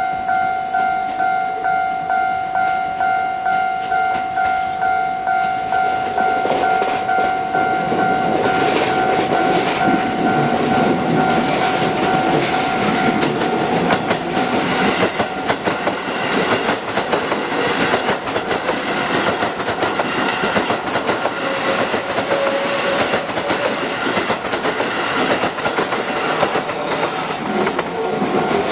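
Japanese level-crossing warning bell ringing in a steady two-tone ding, a little under two strikes a second. From about six seconds in, a Keio line electric train passes over the crossing, its wheels clattering over the rail joints and mostly covering the bell from then on.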